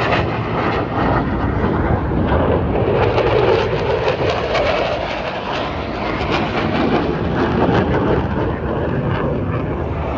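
Jet aircraft engine noise, a loud steady rush with a crackly edge that swells a little a few seconds in and eases slightly around the middle.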